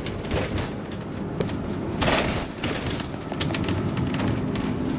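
A motorhome driving, heard from inside the cabin: a steady rumble of engine and tyres on a wet road, with scattered clicks and rattles. A louder rushing swell comes about two seconds in.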